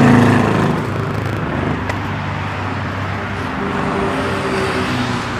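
Road traffic noise: a steady rush of car engines and tyres, with one engine's low hum loudest near the start and fading after about a second.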